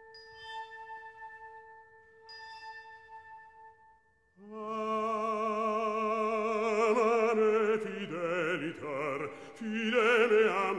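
Background music: a held tone with a few chime-like strikes, then from about four seconds in an operatic voice singing with a strong vibrato.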